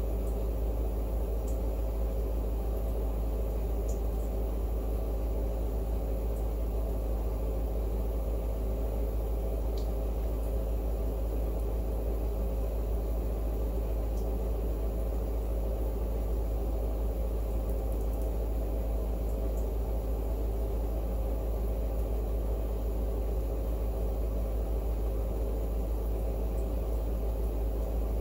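Steady low rumble with a faint hum: unchanging room background noise.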